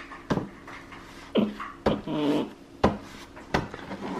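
Paintbrush jabbed onto a stretched canvas: about five sharp, irregular taps in four seconds.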